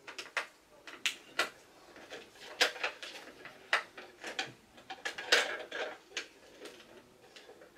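Objects being handled on a cluttered table: irregular clicks, clatters and knocks, the loudest about five seconds in.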